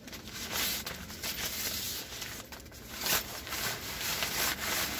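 Nylon carry bag and goal netting rustling and crinkling as a folded pop-up soccer goal is pushed into the bag.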